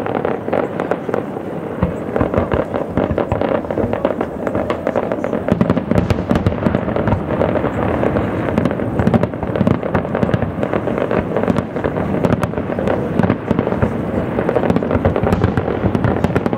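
Fireworks display: a continuous barrage of shell bursts and crackling, many bangs a second, growing heavier about five and a half seconds in.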